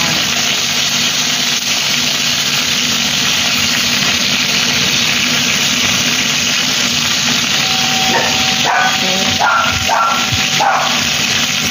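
Talakitok (trevally) steaks sizzling steadily as they shallow-fry in hot oil in a non-stick pan, with a low steady hum underneath.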